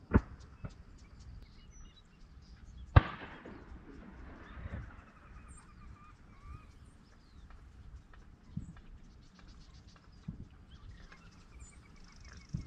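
A few sharp bangs, the loudest about three seconds in with a fading echo after it, then lighter knocks, with faint wavering bird calls between them.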